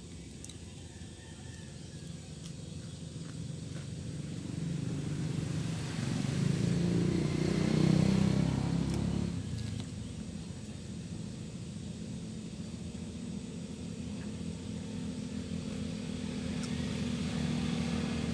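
A motor vehicle's engine going by, swelling to its loudest about eight seconds in and fading, then a steady engine hum that slowly grows louder near the end.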